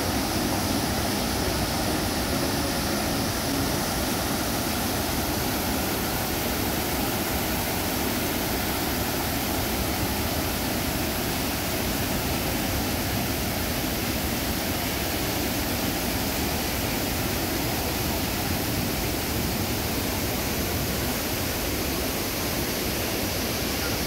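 Steady rushing roar of a large waterfall and river rapids in heavy flow.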